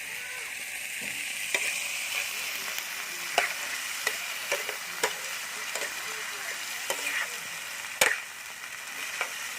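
Food sizzling as it fries in a pan: a steady hiss with sharp clicks and scrapes of a utensil against the pan as it is stirred. The loudest click comes about eight seconds in.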